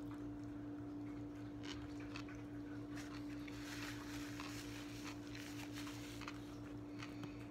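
Faint sounds of someone chewing a bite of a McRib sandwich, with soft clicks and a brief rustle of the paper wrapper a few seconds in, over a steady low hum.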